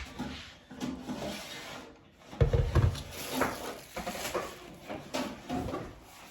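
A boxed electric kettle being unpacked and handled: a run of knocks, scrapes and rubbing of packaging and kettle parts, the loudest knock about two and a half seconds in.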